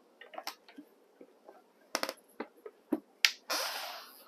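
A fold-out wooden saloon table being folded and turned by hand: a string of sharp clicks and knocks from its leaves and hinges, then a short scraping sound near the end.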